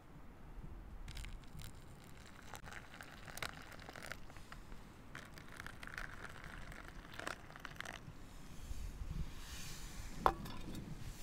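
Faint crinkling of paper meal pouches and their foil cozy as hot water is poured into them from a metal mug, with one sharp clink about ten seconds in.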